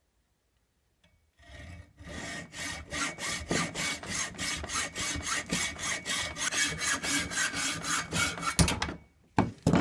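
Hacksaw cutting through a metal rod clamped in a bench vise: quick, even back-and-forth strokes, about four a second, that start a second or so in. The sawing stops near the end and is followed by a few sharp knocks.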